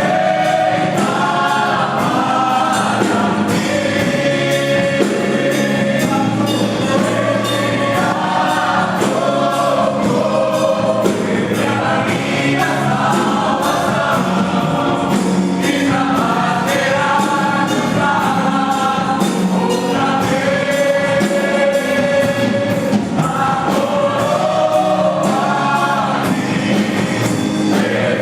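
Christian gospel song with a choir singing over a steady instrumental accompaniment.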